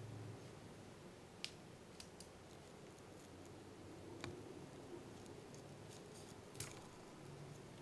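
Near-silent woods with about five short, sharp clicks scattered through it.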